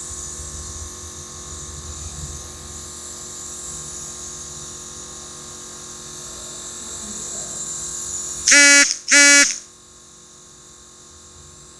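Nebulizer compressor running with a steady buzz and hiss. About two-thirds of the way through, two loud, short, high-pitched sounds come about half a second apart. After them the running sound drops much quieter.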